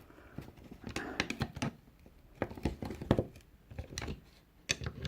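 Flathead screwdriver prising the plastic part out of a BBS alloy wheel centre cap, worked around the rim: a run of irregular small clicks and taps of metal on plastic.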